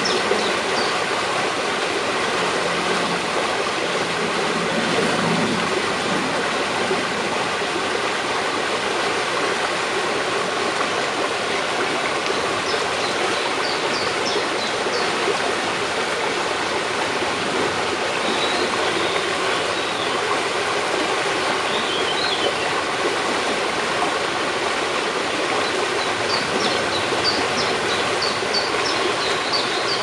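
A small brook running, an even, steady rush of water with no breaks. Faint short high chirps come through it a few times.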